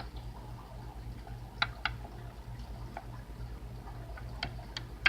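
A few light, sharp taps of small plastic toy figures on a surface, in two pairs and then a single tap near the end, over a faint steady low hum.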